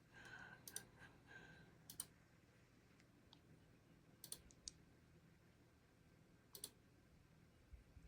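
Faint, scattered clicks of a computer mouse, about half a dozen over several seconds, some in quick pairs, over a low steady hum.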